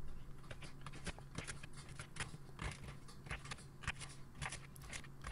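Crinkle-cut knife slicing through raw sweet potato down onto a bamboo cutting board: a run of short sharp cuts and knocks, about three a second, unevenly spaced.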